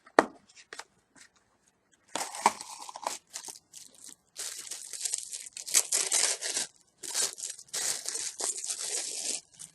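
A small box being opened by hand, its packaging tearing and crinkling in repeated rustling bursts that start about two seconds in, after a few faint clicks.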